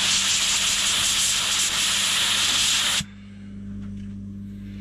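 Compressed-air blow gun hissing as it blows carbon out of the small holes of a MAP sensor, then cutting off abruptly about three seconds in. A steady low hum remains afterwards.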